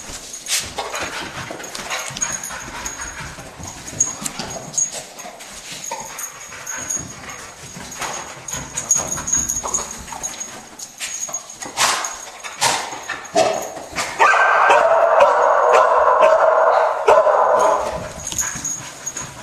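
English springer spaniel cadaver dog whimpering and barking, among scattered clicks and knocks. A loud, steady, unbroken sound runs for about four seconds near the end.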